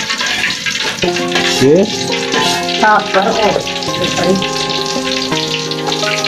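Hot cooking oil sizzling in a wok on a gas stove, stirred with a metal spatula. From about a second in, background music with held notes plays over it.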